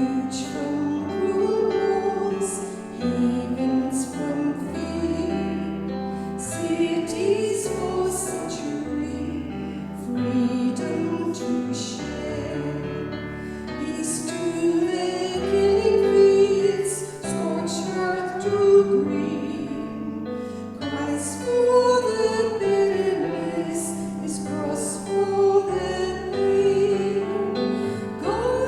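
A soloist singing long, held notes in a classical style, accompanied by a keyboard.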